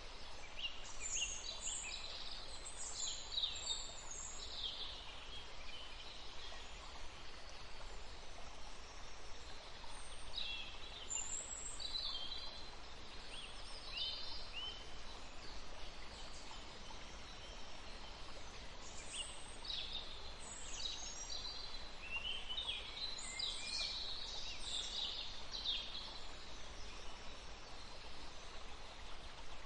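Small songbirds chirping and singing in bouts of short, high trills over a steady faint background hiss.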